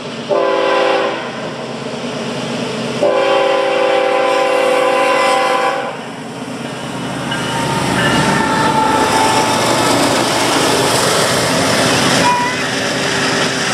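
Freight train diesel locomotive air horn sounding two blasts at a grade crossing, a short one and then a longer held one, each a steady multi-note chord. After that comes the loud, steady rumble and rail noise of the locomotives and tank cars rolling past close by.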